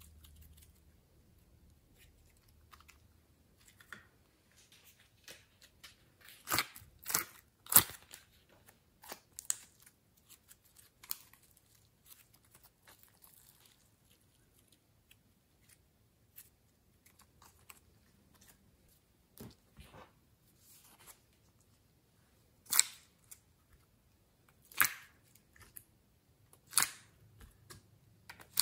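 Glossy slime being stretched and handled, giving sharp sticky pops and crackles: a quick run of pops about a quarter of the way in, scattered clicks after, then three single loud pops about two seconds apart near the end.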